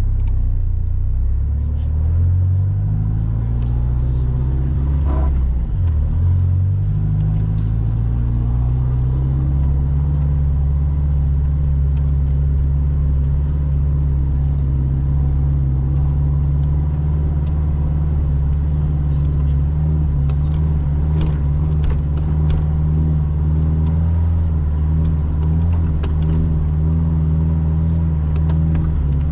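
Mitsubishi Triton's engine running inside the cab on a slow drive along a sandy bush track: its pitch climbs, drops sharply with a gear change about five seconds in, then holds steady. Light rattles and clicks from the cabin over the bumps.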